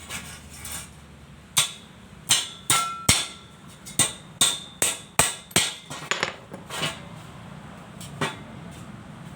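A hammer striking steel, about a dozen uneven blows with a short metallic ring, beginning about a second and a half in and ending with one last blow near the end.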